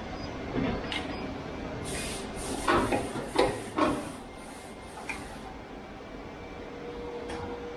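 Plastic injection moulding machine with its mould open: the safety gate slides and a quick run of sharp metal knocks and scrapes about three seconds in as the moulded fan blade is taken out, over a steady machine hum.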